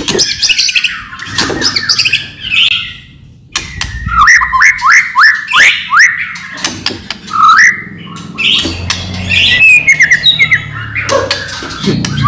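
White-rumped shama (murai batu) singing a loud, varied song: runs of quick sliding whistled notes mixed with harsh clicking calls.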